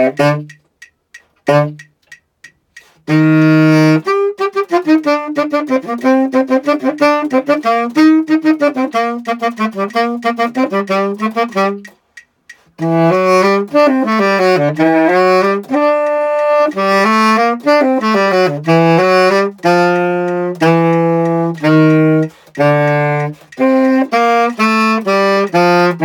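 Unaccompanied tenor saxophone playing a solo melody of many connected notes. After a few short, sparse notes at the start, it plays steadily, with one brief pause about halfway through.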